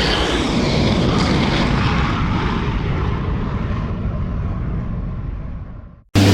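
Airplane flying past: a wide roar that is loudest early, then slowly fades and cuts off abruptly about six seconds in. A louder, steady engine drone with a low hum starts right after.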